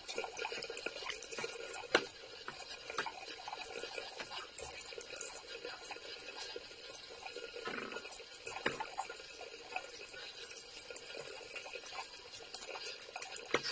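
Water running from a tap while a removed dishwasher part is rinsed and scrubbed, with small knocks and clicks as it is handled; one sharper knock about two seconds in.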